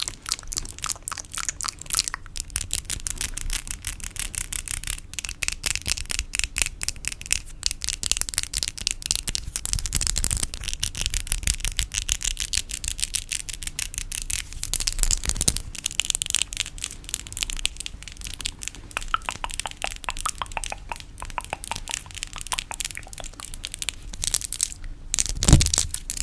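ASMR fingernail tapping: a rapid, dense run of crisp taps and clicks, many each second, with a heavier thump about a second before the end.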